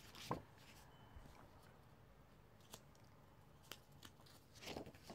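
Mostly near silence with faint handling sounds: a few light clicks and a brief rustle near the end as drawing paper is handled.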